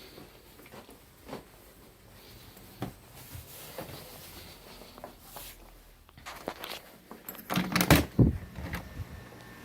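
Scattered knocks and clatters, with a louder cluster of thumps about eight seconds in.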